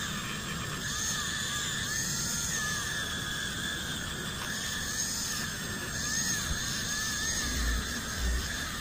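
Handheld rotary tool spinning a small polishing wheel against a copper-plated pendant: a steady high whine whose pitch dips and recovers over and over as the wheel is worked over the piece. Two brief low bumps near the end.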